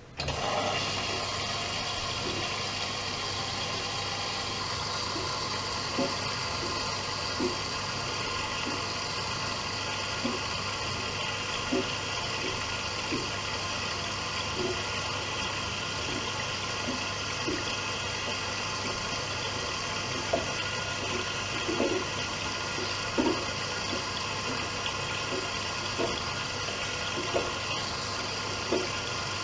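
Privileg Dynamic 7420 washing machine taking in water: the inlet valve opens suddenly and water rushes steadily into the machine with a constant low hum, with small splashes every second or so.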